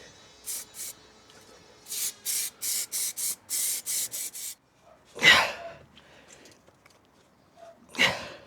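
Carpet lining being rubbed and smoothed by hand onto a glued van panel, a quick run of short brushing strokes, then two louder whooshes about five and eight seconds in.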